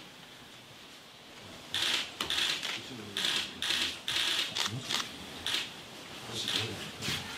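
Rustling of ceremonial robes and light clicking as hands reach into a small wooden box: about a dozen short, uneven bursts starting about two seconds in.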